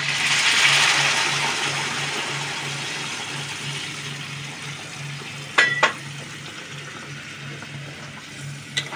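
Warm water poured into a hot kadai of oil-fried taro and potato pieces: a loud rushing hiss as it hits the hot pan, easing off over several seconds into a steady simmering bubble. Two sharp knocks about five and a half seconds in.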